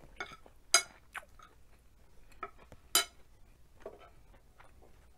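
Cutlery clinking sharply against a plate twice, about a second in and again about three seconds in, each with a brief ring, with softer clicks and taps between.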